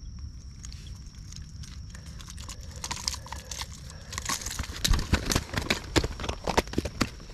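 Irregular crunching and clicking handling noise from a fish being unhooked and gear being handled: footsteps in grass, rustling, and clicks of metal tools. It grows busier in the second half, with a run of sharp clicks and thumps.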